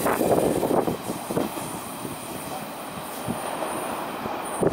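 JNR 115 series electric train passing: the last car rolls by close at the start, then the wheel and track noise drops off about a second in as the train pulls away, with a few sharp clacks from the wheels on the rails.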